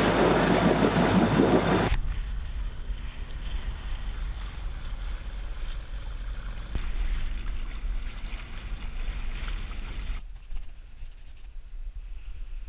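Wind buffeting the microphone and water rushing past a small dinghy under way on choppy sea. The noise is louder for the first two seconds and drops to a faint hush near the end.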